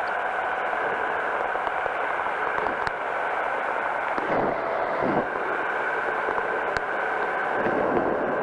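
Powered parachute's engine and propeller running steadily in flight, with air rushing over the microphone. A few louder rushes come about four to five seconds in and again near the end.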